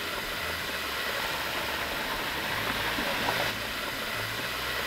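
Butter sizzling in a hot skillet as burger buns toast cut-side down, a steady hiss.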